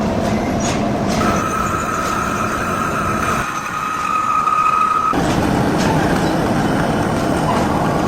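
Heavy lathe turning a large metal pulley, running with a steady grinding noise and a metallic whine from the cut that steps up in pitch for a few seconds before dropping back.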